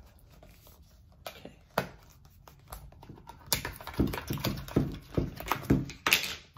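Plastic snap-on lid of a Nesquik powder canister being handled and pried off. Two single clicks come first, then, from about halfway in, a quick run of loud clicks and crackles as the lid comes free.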